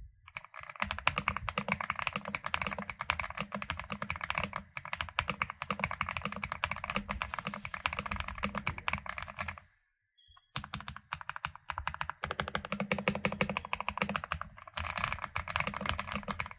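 Fast typing on a Mechlands Vibe 75 mechanical keyboard: a dense, rapid run of keystrokes that breaks off for about a second midway, then starts again.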